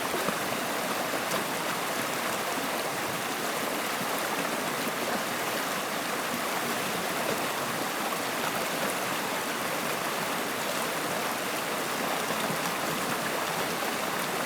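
Flowing water: a steady, even rush that does not change.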